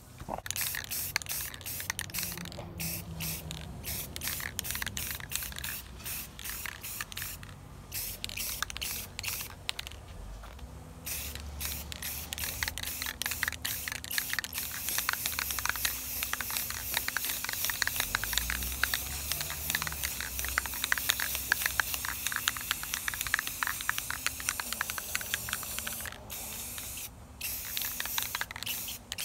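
Aerosol spray can of gloss enamel paint hissing in long passes, broken by several brief pauses as the nozzle is let go.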